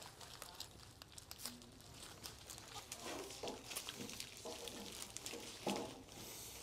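Rustling and crackling of flower stems and leaves as a large bunch of irises and alstroemerias is handled, then a few soft thuds as the bouquet is laid down on a table, the last and loudest near the end.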